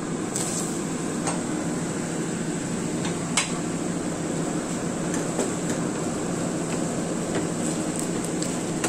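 Chicken pieces sizzling in oil in a nonstick frying pan over a gas flame, under a steady low hum. A few clicks and knocks of the lid and a spatula against the pan, the sharpest about three and a half seconds in.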